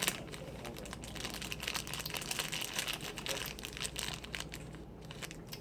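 Plastic toy packaging crinkling and crackling in the hands as a blind-pack doll is unwrapped: a dense run of rapid small crackles that thins out near the end.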